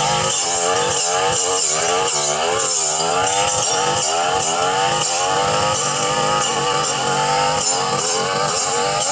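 Petrol brush cutter running at high speed while cutting overgrown brush, its engine pitch repeatedly dipping and rising.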